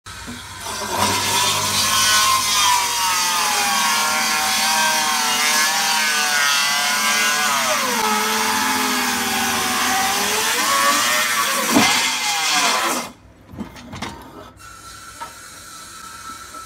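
Power tool cutting hardwood: a loud motor whine over cutting noise that dips in pitch twice as the blade is loaded by the wood, then stops about 13 seconds in, leaving a few quieter knocks.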